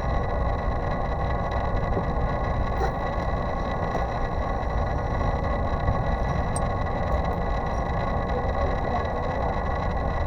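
Steady mechanical hum and rushing noise, strongest in the low end, with a few faint, steady high-pitched whines over it.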